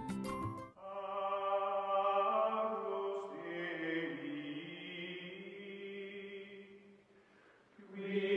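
Background music: a short plucked passage that stops about a second in, then long, slowly shifting held chords that fade and swell again near the end.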